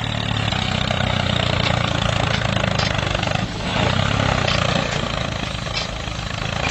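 A small motor running steadily with a fast whirring buzz, swelling a little in level for a couple of seconds about halfway through.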